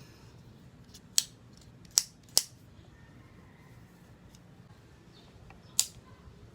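Four sharp, separate clicks of tools and small parts being handled while the electric kettle's thermostat switch is taken apart.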